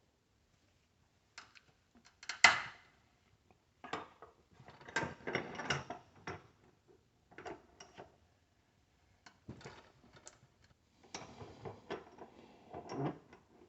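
Hand tools working apart a dental device's power supply for scrap: bursts of clicks, rattles and clatter of metal and plastic parts, with one sharp snap about two and a half seconds in.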